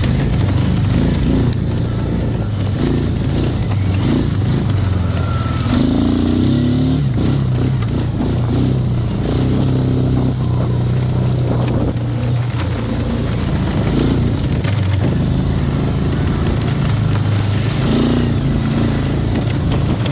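Can-Am Outlander 850 ATV's V-twin engine running under way on a test ride, a steady engine note that rises and falls a little with the throttle.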